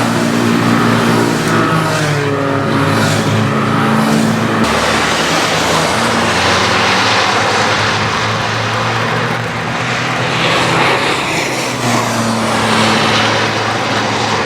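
Citroën C1 race car engines running hard under racing load, with pitch shifts as the cars pass and change speed, over a steady hiss of spray from the wet track. The sound changes abruptly twice, about five and twelve seconds in.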